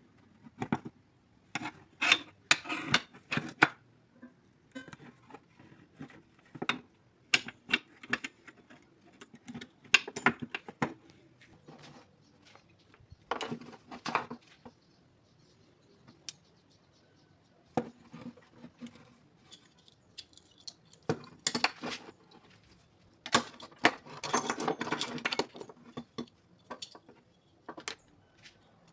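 Metal clicks and clinks from locking pliers (vise-grips) and tools being handled, in irregular clusters with quiet gaps between; the busiest stretch is a longer rattle of clinks about three-quarters of the way through.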